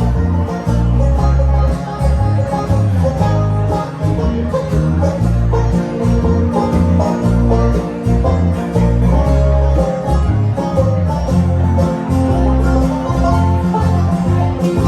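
Bluegrass band playing an instrumental passage: banjo and guitar picking over a steady upright-bass line.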